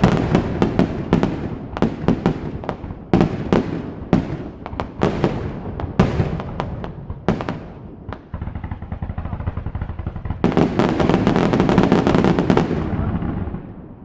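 Aerial fireworks display going off: a rapid series of sharp bangs and booms, easing into a steadier rumble about eight seconds in, then a dense rapid crackling salvo that fades near the end.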